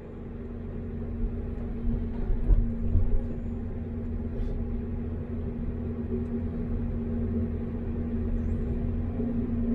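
Caterpillar 329D excavator's diesel engine running with a steady low drone, with a few short knocks about two to three seconds in.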